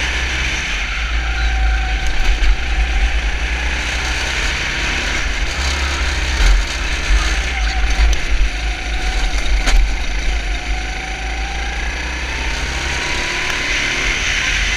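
Four-stroke 250 cc kart engine running at racing speed, with a rattly mechanical note whose pitch rises and falls with the throttle through the corners. Heavy wind rumble on the onboard camera's microphone runs under it.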